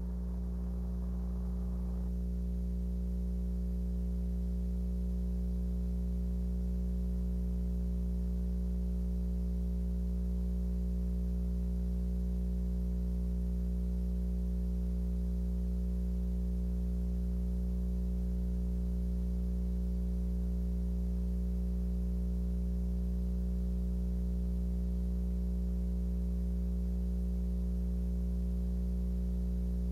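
Steady electrical hum: a low drone with several steady higher tones that join about two seconds in, unchanging throughout.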